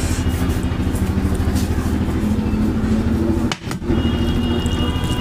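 Steady low motor hum, dropping out briefly about three and a half seconds in, with a thin high whine joining near the end.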